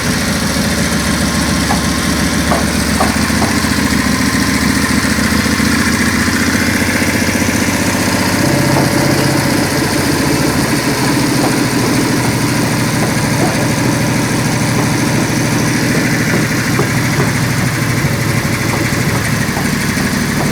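Rebuilt water-cooled Matchless MX V-twin engine from a 1930s Morgan three-wheeler running steadily on a test run, its note changing about halfway through.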